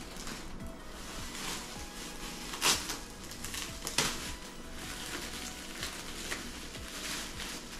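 Clear plastic wrapping and bubble wrap crinkling and rustling as it is handled and pulled back, with two sharper crackles, a little under three seconds in and again about a second later.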